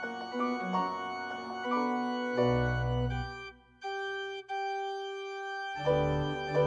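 Organ playing held chords over deep pedal bass notes, breaking off briefly about halfway to a single sustained note before the full chords return near the end.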